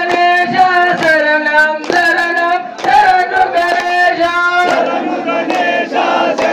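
A man singing a devotional song through a microphone and loudspeaker, in long held notes, with hands clapping along in time. About two-thirds of the way through, many voices of the crowd join in.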